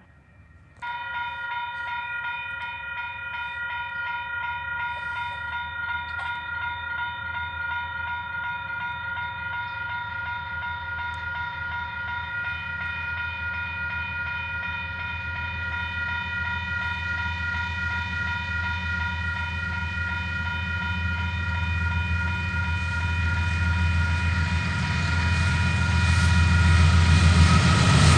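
Railway level crossing warning bells start ringing suddenly about a second in and keep ringing steadily, signalling an approaching train. Under them the low rumble of the approaching train grows steadily louder toward the end.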